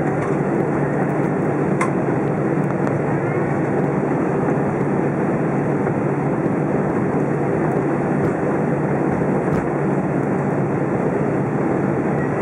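Steady cabin noise inside an Airbus A320 rolling on the ground after landing: the jet engines and the rumble of the wheels on the pavement, heard from a seat by the wing.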